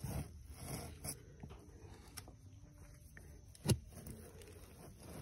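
Faint handling noise as bougainvillea cuttings are pressed into small plastic pots of coir substrate: soft rustles and light taps, with one sharp click a little over halfway through.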